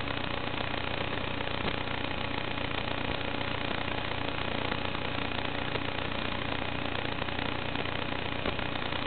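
Steady, even hiss of static with a few faint steady hum tones. The sound does not rise or fall at all while the quad flips and dives, which points to the audio channel of an analog FPV video link rather than the motors.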